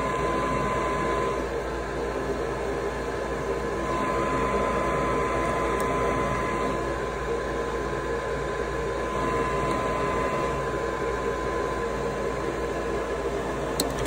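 Maytag high-efficiency gas furnace's draft inducer motor running steadily with a constant whine. The furnace's pressure switch stays open while the inducer runs, so the burners don't light: a failed pressure switch.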